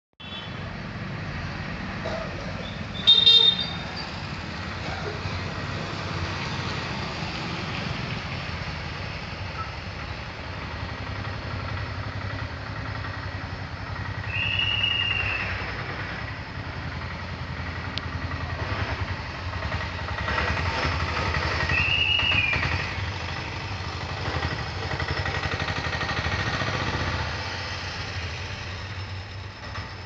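Steady street traffic noise, with a short, loud horn blast about three seconds in and two brief rising-and-falling higher tones later on.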